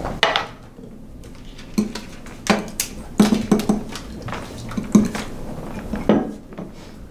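A wine glass and a stainless-steel shaker clinking and knocking as they are handled on a table: a series of separate sharp taps.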